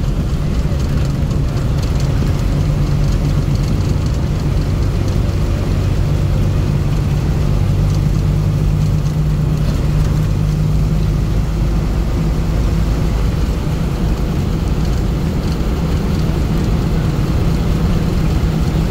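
Steady low engine hum and road noise of a moving motor vehicle.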